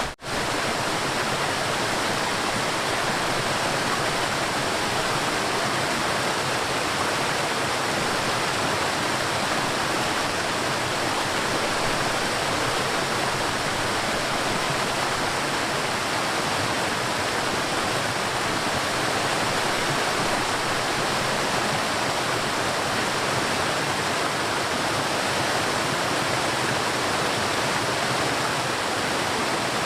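River water rushing steadily over rocks, an even, unbroken rush. It drops out for a split second just after the start.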